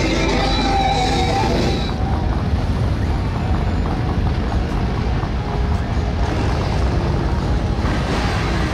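Motorcycle engines rumbling loudly, a dense low drone, with music playing for the first two seconds or so.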